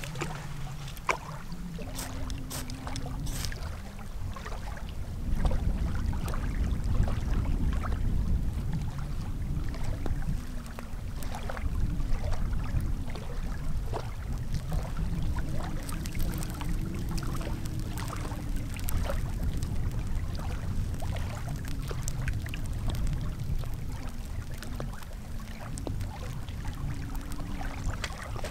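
Wind buffeting the microphone in a steady low rumble, a little stronger from about five seconds in. Over it come scattered small cracks and rustles of dry sticks and birch bark being handled and snapped while a campfire is laid.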